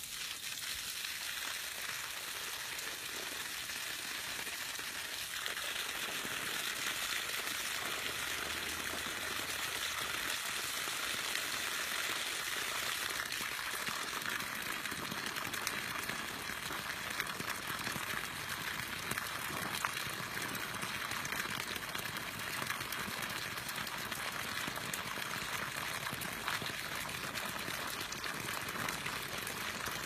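Steady hissing noise of water, even and without distinct events, filling in a little more about six seconds in.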